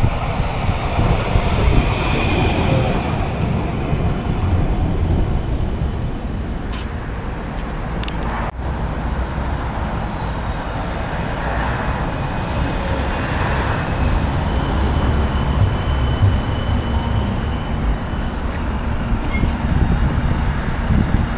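CAF Urbos 3/5 low-floor tram running on street track and drawing into a stop, a steady low rumble of wheels on rail. The sound breaks off abruptly about eight and a half seconds in and carries on at a similar level as a tram approaches and passes close by near the end.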